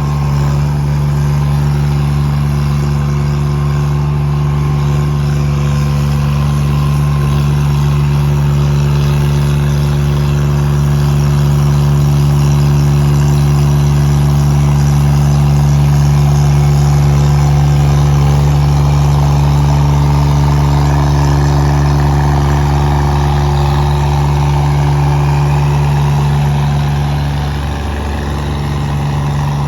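Engine of a 1600 kg remote-control hydraulic road roller running steadily, with a brief drop in level near the end.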